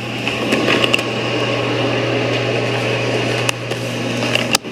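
A steady machine-like hum with a constant low tone under a hiss of noise and a few light clicks, cutting off suddenly near the end.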